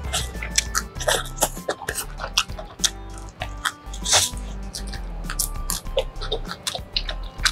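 Biting and chewing a crusty bánh mì baguette wrapped around pork meatballs and fried egg, with many short sharp crunches and crackles of the bread crust throughout.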